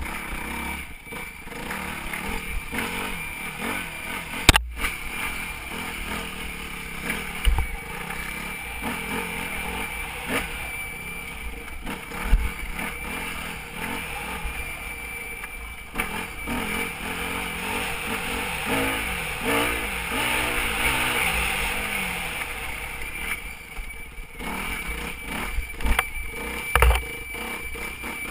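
Yamaha WR250F's single-cylinder four-stroke engine being ridden off-road, its revs rising and falling with the throttle, with sharp thuds and clatter as the bike hits bumps. A thin, steady high whine runs underneath.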